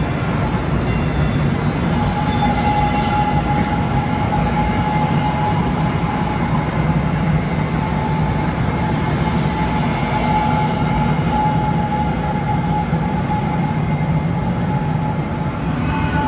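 DART Kinki Sharyo light rail vehicle passing at close range: a steady rumble of wheels on rail, with a steady high whine held through most of the pass.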